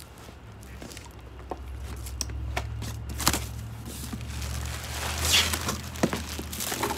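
Plastic wrapping and packaging rustling and crinkling as it is handled and pulled from a box, with scattered clicks and taps. The crinkling grows denser in the second half.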